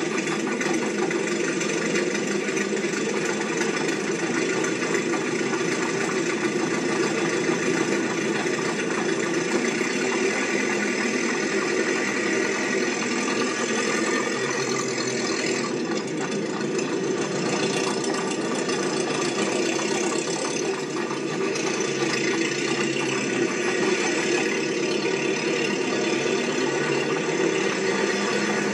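Steady mechanical running noise with a rattle, unbroken throughout.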